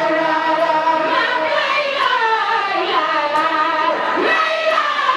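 A large group of women singing a chant together in unison, with long held notes that slide up and down in pitch.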